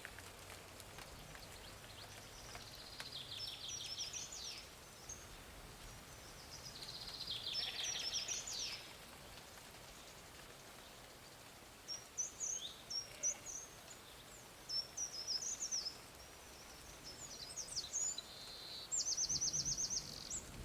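Songbirds singing: phrases of high chirps and short rapid trills, repeated several times with short gaps between, over faint outdoor background noise.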